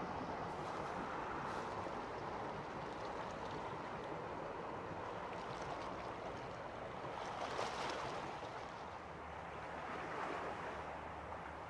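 Steady rushing of water and wind as a passing archipelago passenger boat's wake spreads across the water, with brief louder surges about eight and ten seconds in.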